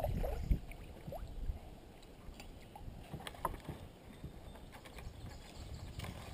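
Kayak paddle dipping and splashing in the river for the first second or so, then softer water lapping against the kayak's hull with a few small clicks and taps.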